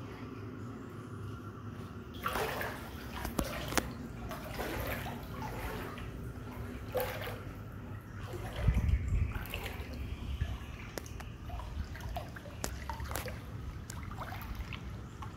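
Shallow floodwater sloshing and splashing irregularly, as from someone wading through it, with a louder low thump about halfway through.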